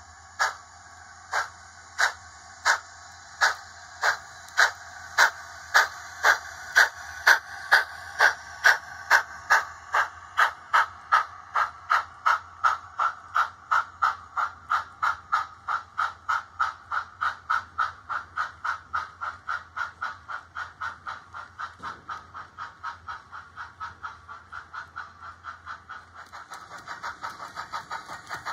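DCC sound decoder in a Hornby OO model steam locomotive, playing steam exhaust chuffs through its speaker as the locomotive pulls away and gathers speed. The chuffs start about a second and a half apart and quicken steadily to several a second, over a steady low hum. A hiss joins near the end.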